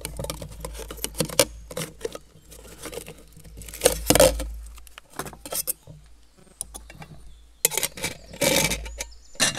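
Aluminium camping kettle and the stainless steel cups nested inside it clinking and scraping as they are handled and pulled out in a cloth pouch, with two longer rattling scrapes about four and eight and a half seconds in.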